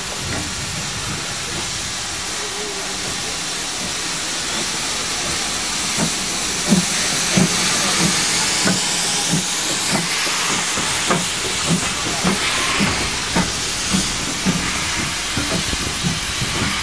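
Steam locomotive (GWR 1500 class pannier tank No. 1501) hissing steam with cylinder drain cocks open, then about six seconds in starting away: exhaust chuffs, about one every 0.7 s, quickening to about two a second as the train gathers speed.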